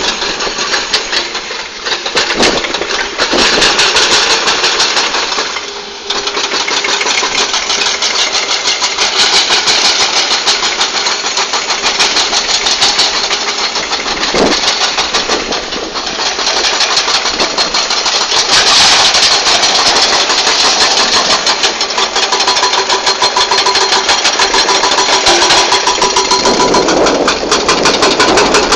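Crawler excavator's diesel engine working under load, with a fast, even knocking.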